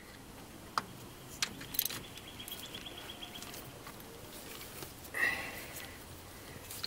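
Hand tools on the thermostat housing bolts of a small-block Chevy V8: a few light metal clicks, then a short run of fine, even clicking like a ratchet wrench being swung back. A louder brief sound comes about five seconds in.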